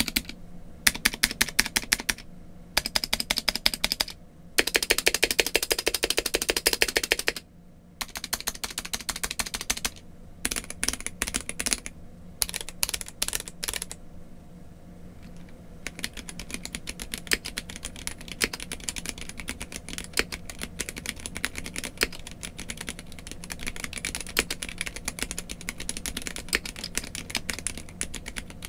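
Typing on a Gamakay K87 acrylic-case mechanical keyboard with Gateron Red linear switches and ABS keycaps. Fast rattling runs of keystrokes for the first several seconds, then separate presses, a brief lull, and steady continuous typing from about halfway on.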